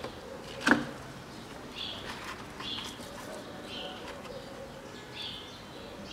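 A single sharp knock just under a second in, as hands work a toothed timing belt onto the engine's camshaft pulleys. A bird chirps short, repeated notes about once a second.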